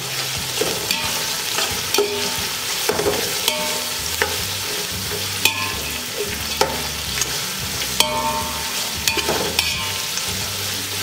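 Sliced onions sizzling steadily in hot oil and ghee in a large metal pot, stirred with a metal ladle that clinks and scrapes against the pot about once a second.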